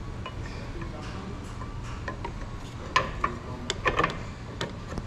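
Light metal clicks and clinks from parts being handled at the handlebar riser clamp, in a cluster of sharp clicks from about three seconds in, over a steady low shop hum.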